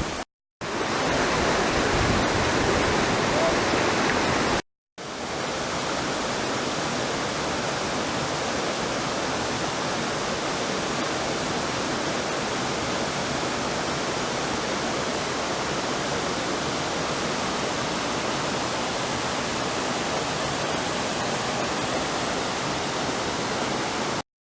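Water of the 40 m Amedaki waterfall falling in a steady rush. The sound cuts out briefly twice in the first five seconds and is a little louder between those gaps.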